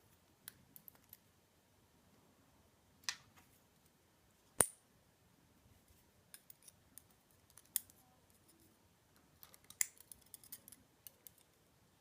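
Small sharp metallic clicks and ticks as pin tumblers are taken out of a lock cylinder's core and set down, a handful of louder clicks with lighter taps between them.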